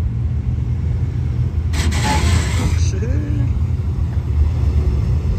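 Lowered Chevrolet Silverado pickup's engine and exhaust rumbling low and steady as the truck rolls slowly past. A sharp hiss cuts in about two seconds in and stops about a second later.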